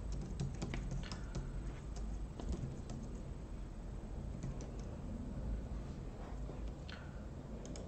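Typing on a computer keyboard: scattered key clicks, thickest in the first few seconds, then a few more later on.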